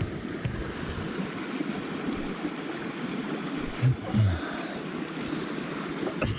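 Small stream running, a steady rush of water, with wind buffeting the microphone and a couple of short low thumps about four seconds in.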